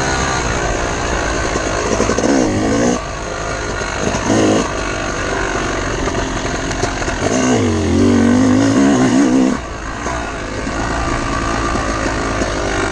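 Dirt bike engine running under riding load, its revs climbing and dropping several times, with a longer high rev about three quarters of the way through.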